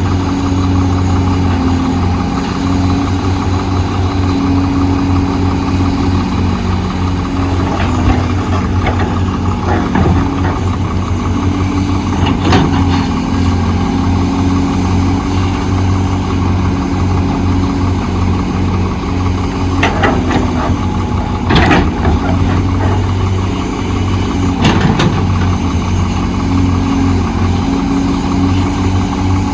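Diesel engine of heavy earthmoving machinery running steadily, with several short sharp knocks and scrapes standing out over it.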